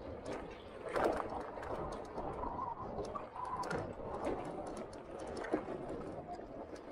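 100cc Yamaha motorbike coasting downhill on a dirt forest track with its engine stalled and off: tyres on loose dirt and frequent clicks and knocks from the bike rattling over the bumps.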